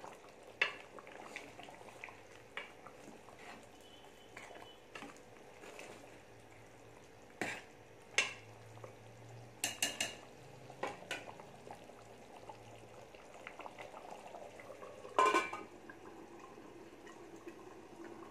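Metal ladle stirring thick chicken curry in a metal pot: scattered clinks and scrapes of the ladle against the pot, over a low simmering hiss. A louder metal clank comes about fifteen seconds in.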